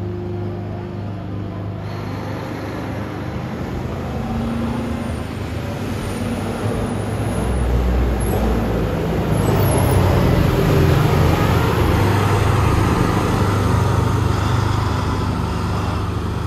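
Rosenbauer Panther 6×6 airport crash tender driving past, its diesel engine growing louder as it approaches, loudest about ten seconds in, then fading a little as it drives away.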